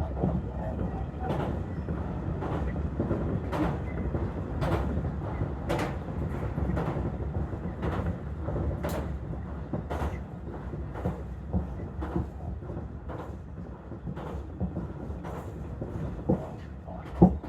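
Inside a commuter electric train running between stations: a steady low rumble with a click about once a second as the wheels cross rail joints, and one sharper knock near the end.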